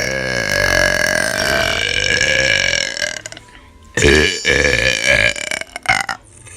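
A woman's long, loud, deliberate burps: a drawn-out one ending about three seconds in, then after a short pause a second one lasting about two seconds.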